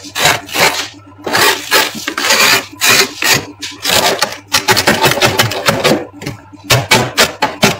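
Thick frost being scraped off the inside of a freezer in quick, repeated strokes that come in runs with short pauses between them.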